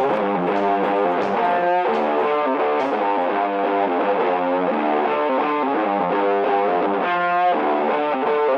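Background music: a distorted electric guitar playing a steady pattern of notes.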